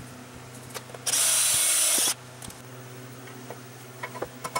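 Power drill running in one loud burst of about a second, boring into epoxy filler (JB Weld) in the mill's base, followed near the end by light clicks of a screwdriver tip picking at the drilled hole.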